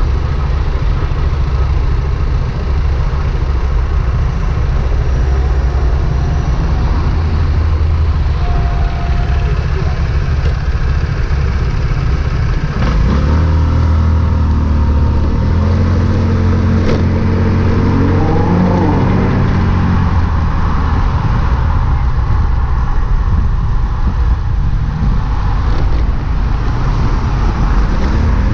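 Onboard engine and road sound of a vehicle in city traffic: a steady low engine rumble while stopped, then about halfway through the engine revs up with a rising pitch as it pulls away, followed by steady engine, tyre and wind noise while driving.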